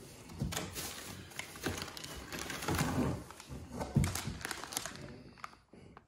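Plastic packaging rustling and crinkling as bagged parts are handled and lifted out of a cardboard box, with a few soft knocks. It dies down near the end.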